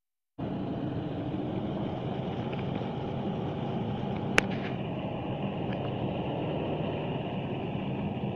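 A steady low rumble like an engine idling, which drops out for a moment right at the start. There is a single sharp click about four seconds in.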